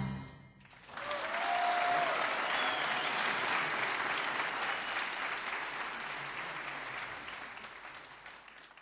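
The last note of the band's music dies away, then an audience applauds, starting about a second in, holding steady and slowly fading toward the end.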